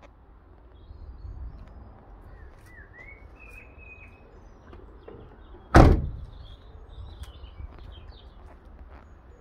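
The front passenger door of a Peugeot Partner van is slammed shut once, a single loud bang a little past halfway through.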